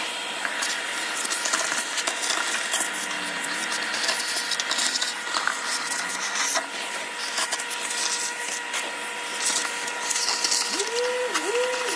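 Vacuum cleaner running steadily with a motor whine, its hose sucking debris out of the bottom of an air-conditioner condenser cabinet. The pitch wavers down briefly a couple of times near the end.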